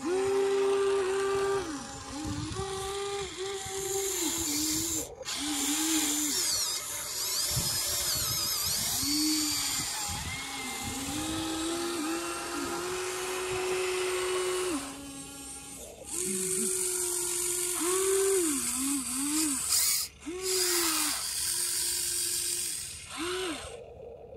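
Small electric motors and gearboxes of a Huina 1593 RC excavator whining as the arm and bucket work. The pitch rises and falls and stops and starts in short runs, cutting off abruptly a few times.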